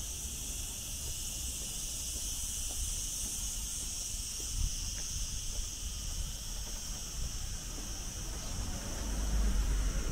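Steady, high-pitched chorus of singing insects, with a low rumble underneath that swells near the end.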